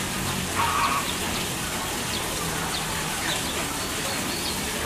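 Steady hiss of running water, with a few short, high bird chirps over it and a brief call about a second in.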